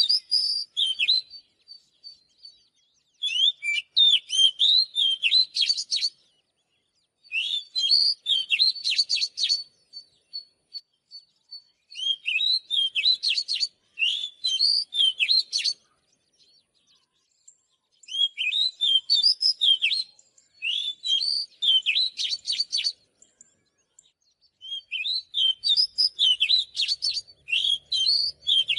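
Oriental magpie-robin singing: bouts of rapid, varied whistles and chirps, each two to three seconds long, separated by short pauses.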